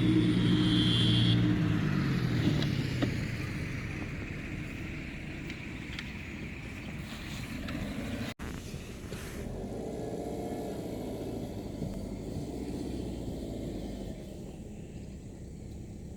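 Tata Indigo CS car running, its engine note dropping within the first two seconds and then settling quieter. About eight seconds in the sound cuts out for an instant, after which a quieter engine sound continues.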